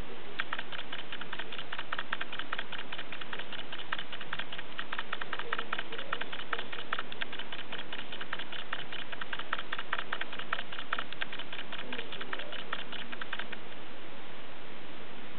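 Rapid light clicking, many small strokes a second, over a steady hiss; the clicking stops about thirteen seconds in.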